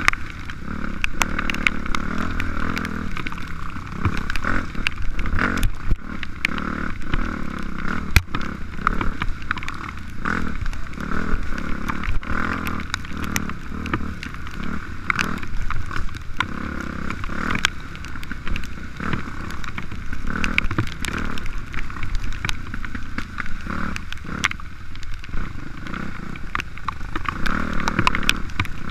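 Dirt bike engine heard from a helmet-mounted camera, revving up and down as it rides a rough, muddy trail, with frequent knocks and clicks from the bumps.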